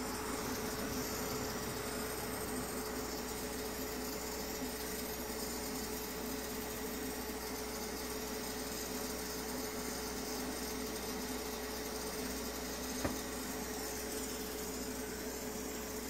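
Hot air rework tool blowing steadily, a constant hiss with a low hum, as it heats the solder joints of an LCD's ribbon cable to desolder the old screen. A single light click about 13 seconds in.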